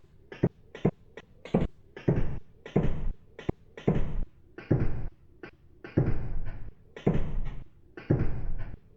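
A recorded microwave oven door closing, played back from a sampler at different pitches, mostly lowered. It comes as a string of irregular thumps and clunks, some short and some drawn out, about two a second.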